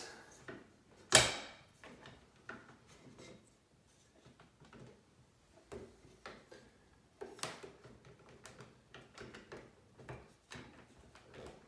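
Hands handling and fitting parts of an AK-47 airsoft rifle: one sharp click about a second in, then scattered lighter clicks, knocks and rubbing as pieces are pushed into place.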